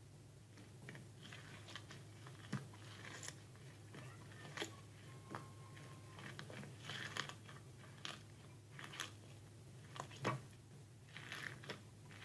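Slime being handled, squished and poked, giving scattered soft clicks and short crackles at uneven intervals.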